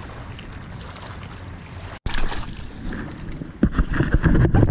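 Wind rumbling and buffeting on a camera microphone, steady at first, then louder and gustier with rustling handling noise after about two seconds, loudest near the end.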